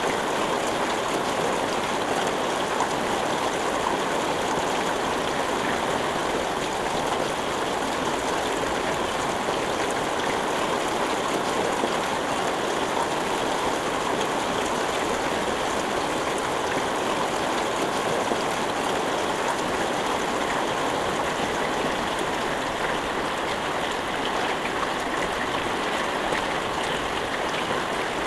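Steady rain falling with no thunder: a dense, even patter that holds at one level throughout.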